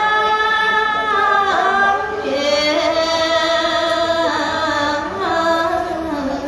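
A woman's unaccompanied solo voice chanting a Khmer Buddhist dharma sangvek verse, holding long notes that slide slowly between pitches, with a short breath about two seconds in.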